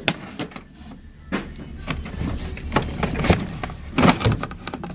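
Scattered knocks and rattles of loose objects being handled and moved about, over a low steady hum.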